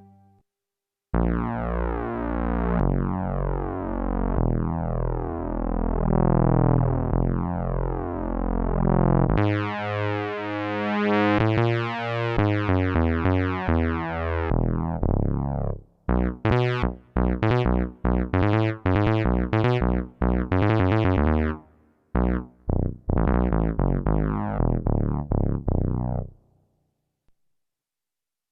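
Fred's Lab Manatee synthesizer playing a preset: about a second in, long held chords start with overtones sliding through them. Around the middle they give way to a run of short, quickly fading notes, and the sound dies away near the end.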